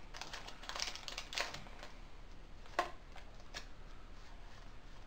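Foil wrapper of a Pokémon trading-card booster pack crinkling and tearing open, a cluster of crackles in the first second and a half and a single sharp crack near the middle, then a few light clicks as the cards are handled.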